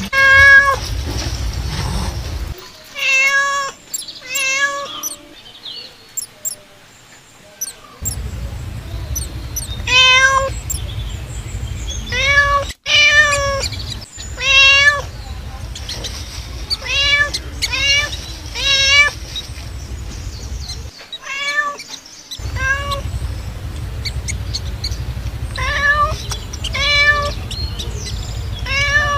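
A cat meowing again and again: short, high, rising-and-falling calls, often two or three in quick succession, with pauses between the runs. A low, steady rumble comes and goes underneath.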